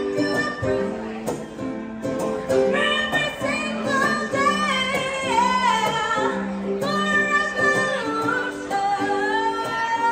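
Live music: a woman singing with acoustic guitar accompaniment.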